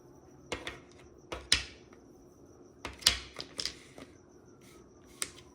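Mahjong tiles clacking against each other and the table: a handful of sharp, separate clicks, several in close pairs, as tiles are picked up and set down.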